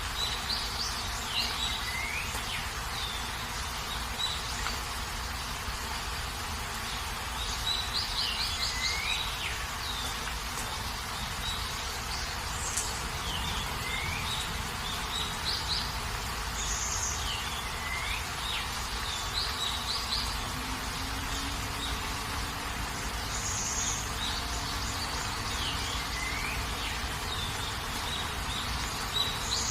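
Steady rain with birds calling over it: short falling whistles and quick runs of chirps that come back every few seconds.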